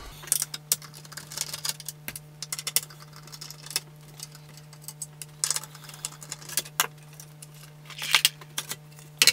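A screwdriver and screws clicking and clinking against the sheet-steel chassis of a vintage Tandberg Sølvsuper 11 radio amplifier as its bottom cover is unscrewed. It is an irregular run of sharp metallic clicks, bunched into short clatters.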